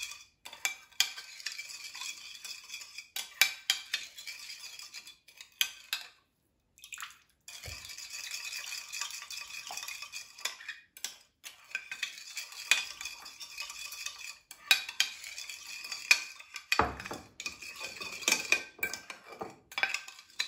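Metal spoon stirring and scraping around a small ceramic bowl, with frequent light clinks against its sides, mixing sugar and salt into rice vinegar until they dissolve. The stirring stops for a moment about six seconds in, then carries on.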